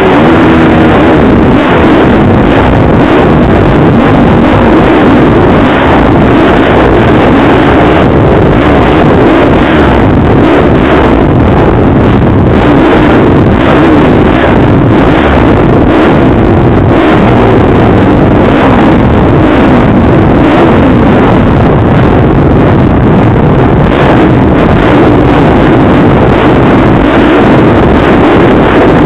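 Motocross bike engine running loud and steady while the bike rides the track, heard close up from a camera mounted on the bike, with wind on the microphone.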